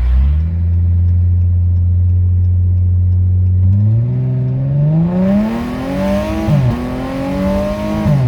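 Supercharged car engine held at a steady note, then taken to full throttle about four seconds in: the pitch climbs quickly as the car accelerates hard, with a rushing intake noise, and drops sharply twice at the upshifts, near the end.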